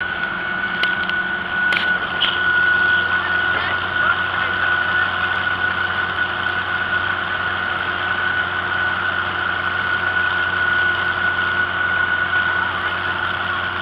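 Vintage farm tractor engine running at a steady pace while towing a passenger wagon, with a constant high whine over the low engine hum. A few sharp clicks sound in the first two seconds.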